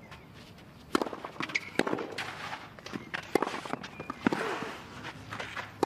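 Scattered applause from a small crowd, irregular sharp claps starting about a second in after a winning point.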